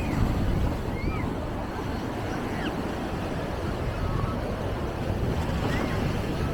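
Choppy sea waves washing against the shore, with wind buffeting the microphone. A few faint, short, high cries are heard over it.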